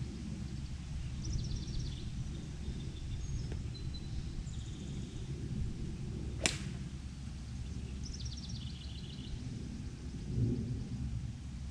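Golf club striking a ball off the grass: one sharp, short crack about halfway through. Birds chirp in short trills before and after, over a steady low outdoor rumble.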